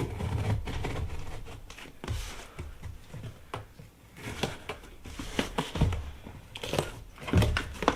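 Knife cutting open a shipping package and the packaging being pulled apart: irregular crinkling and tearing with scattered clicks and scrapes, and a thump near the end.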